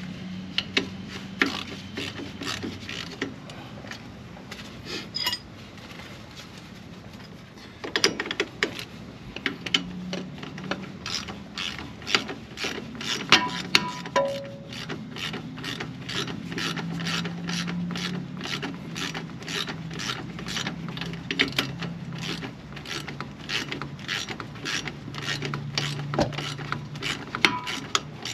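Hand ratchet wrench clicking as it is swung back and forth, sparse at first with a short lull about five seconds in, then a steady run of about two to three clicks a second.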